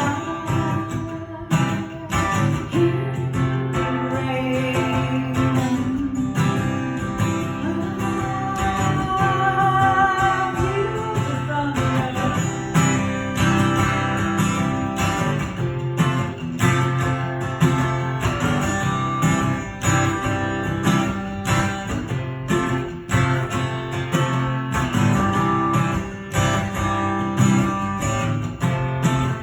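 Acoustic guitar strummed and picked in an instrumental break of a song, with frequent strokes in a steady rhythm.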